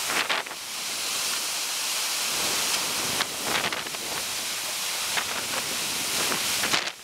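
Typhoon storm surge: floodwater rushing and churning past in strong wind, a dense, steady rush of noise with several sharper swells.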